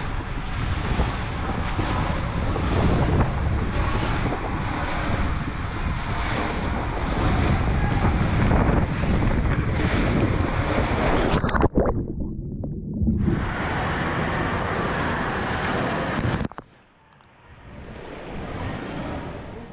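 Water rushing and a rider sliding fast down an enclosed Van Egdom Tube 1400 water slide, a steady hissing rumble inside the tube. A little over halfway through comes a sudden splash into the landing pool, and the sound briefly goes muffled; near the end it turns muffled and much quieter again, as if under water.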